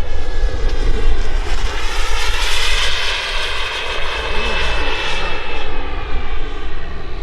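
KingTech K86 G4 Plus turbine of a 1/8-scale PilotRC F-16 RC jet whining as the jet flies past. The sound swells to a peak two to three seconds in, then fades as the whine drops slightly in pitch.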